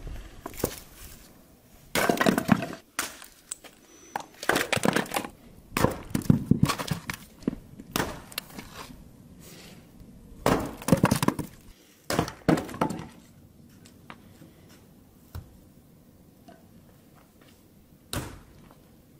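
Axe chopping firewood on a tree-stump chopping block: repeated heavy blows every couple of seconds, some followed by the cracking of the wood as it splits. A longer pause comes before a last blow near the end.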